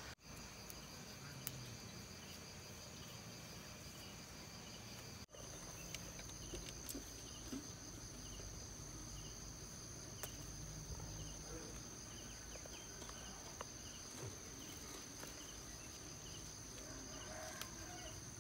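Faint outdoor insect ambience: a steady high-pitched buzz with a cricket-like chirp repeating about every half second. A few faint ticks and rustles sound over it, and the whole ambience drops out for an instant about five seconds in.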